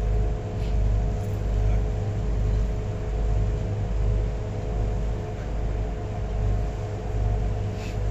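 Engine drone of a river cruise boat heard on board: a steady low rumble that swells and fades about once a second, under a constant hum.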